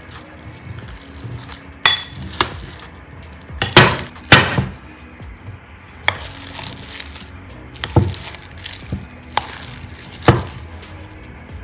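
Stainless steel potato masher mashing boiled potatoes in a glass bowl: the soft sound of the mashing, broken by several sharp, irregularly spaced clinks of the metal masher against the glass, the loudest two about four seconds in.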